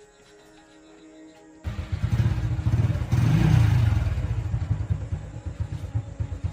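Soft background music, then a small motorcycle engine comes in suddenly about one and a half seconds in, revs up briefly, and settles to a pulsing idle.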